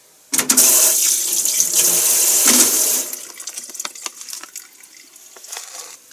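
Kitchen tap running into the sink for about two and a half seconds, then shut off, followed by a few light clicks and drips.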